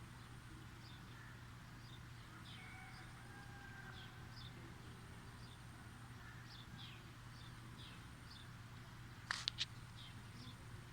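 Faint, high-pitched bird chirps repeating every half second or so, each a short falling note, over a low steady hum. About nine seconds in come two sharp, louder clicks.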